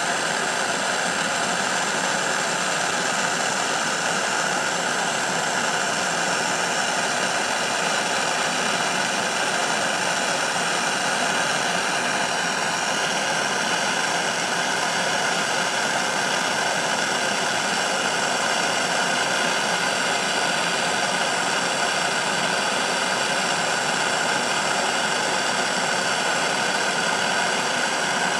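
Gas torch flame burning steadily with a constant hiss as it heats a silver nugget toward melting.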